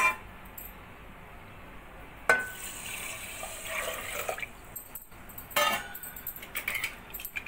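Water poured from a vessel into a metal pressure cooker onto rice, a steady splashing pour starting about two seconds in. Short metallic knocks come at the start and again near the end.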